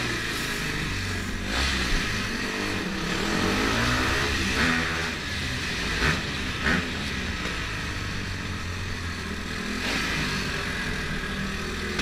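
Dirt bike engine running under the rider, its revs rising and falling as he rides through.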